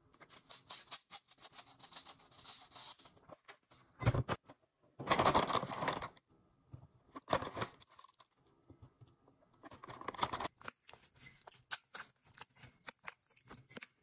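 Kitchen prep sounds: liquid seasonings poured into a bowl, a short knock about four seconds in as a bottle or cup is set down, and a plastic bag of light brown sugar crinkling as it is opened and spooned from.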